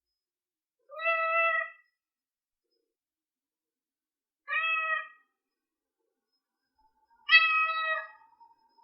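Newborn kitten crying: three short, high-pitched mews, each rising briefly at the start and then held, a few seconds apart. These are the cries a kitten under a month old makes to call its mother.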